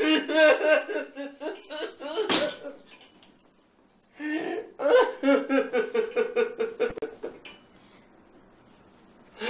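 A woman sobbing in quick, gasping bursts, then after a short pause crying again, ending in a longer drawn-out wail.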